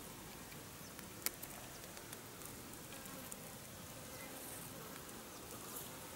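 Faint steady insect buzzing, with one sharp click about a second in.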